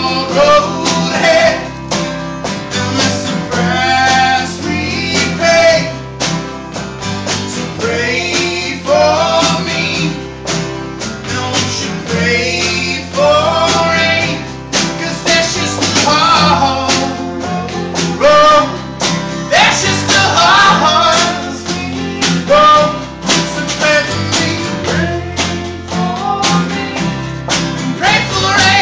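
Live band playing a country-style song: a man singing over acoustic and electric guitars, a steel guitar and a snare drum.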